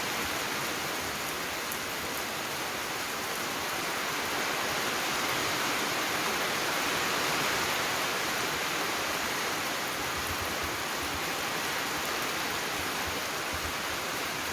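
Heavy rain pouring down as a steady, even hiss that swells a little in the middle.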